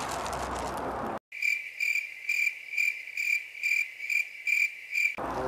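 Cricket chirping sound effect: a clean, high chirp repeating about twice a second for some four seconds over dead silence, cut in after about a second of steady outdoor noise.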